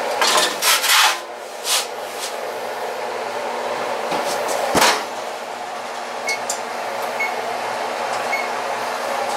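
A wooden pizza peel knocking and scraping against the oven as a pizza is pulled out, with several sharp knocks in the first two seconds. One heavy thump follows about five seconds in, all over a steady mechanical hum.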